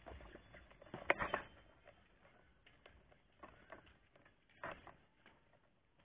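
Irregular light clicks and knocks, loudest in a cluster about a second in and again near five seconds: handling noise from a handheld camera carried while walking.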